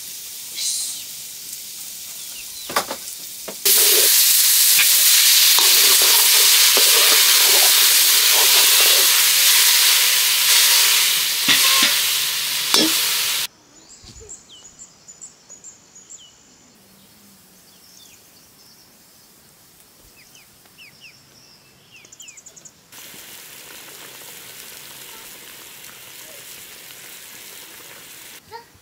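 Food frying in hot oil in a pan, a steady sizzle with occasional knocks of stirring. It gets much louder about four seconds in and drops away abruptly about halfway through. A quieter stretch with faint high chirps follows, and then a softer sizzle returns near the end.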